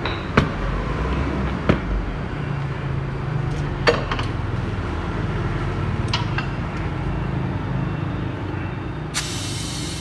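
Steady low machine hum with a few sharp clicks and knocks from a motorcycle tyre and wheel being handled. Near the end comes a loud hiss of compressed air from the tyre inflator at the valve.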